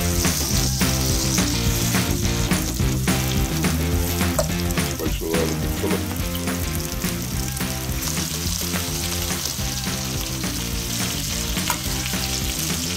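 Flour-coated fish fillets frying in butter and oil in a metal roasting pan: a steady sizzle.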